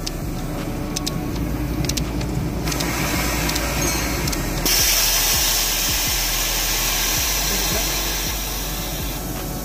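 Socket wrench clicking as the bolts holding the AC compressor's suction and discharge pipes are loosened, over a steady hiss that gets louder about halfway through.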